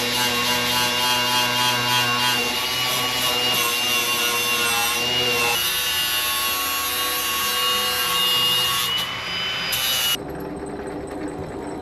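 A power tool cutting or grinding metal: a steady high whine over a rasping, scraping noise that cuts off suddenly near the end.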